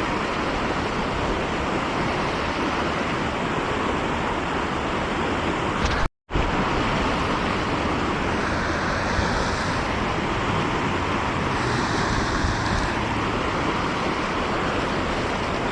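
Fast-flowing river current rushing steadily over rocks, an even wash of water noise. It cuts out completely for a split second about six seconds in.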